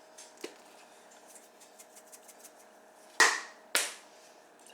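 Two sharp knocks about half a second apart, each with a short fading tail, after a few faint clicks near the start.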